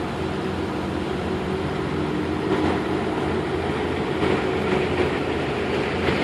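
Heavy machinery engine running steadily, with a continuous mechanical rumble.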